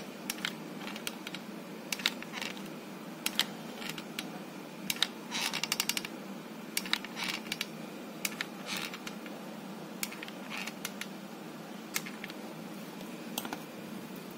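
Hot glue gun being worked over a vinyl Bible cover: scattered sharp clicks and taps, with a quick rattling run of clicks about five seconds in.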